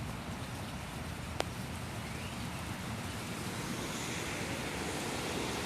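Steady rushing of floodwater flowing fast across a yard like a small river, with one brief click about a second and a half in.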